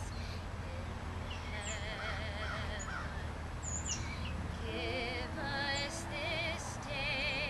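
A woman singing a slow solo with a wide, even vibrato. Short high bird chirps sound now and then.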